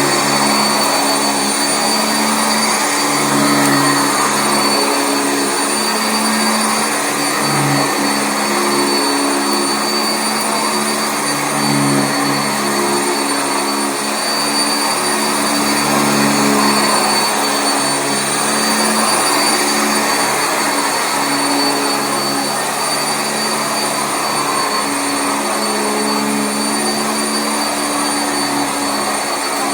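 Sanitaire SC679J commercial upright vacuum cleaner running on carpet: a steady loud rush with a thin high motor whine and a lower hum that wavers.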